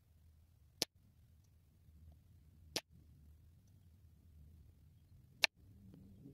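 Three single shots from a low-powered airgun, each a sharp crack, about two to three seconds apart.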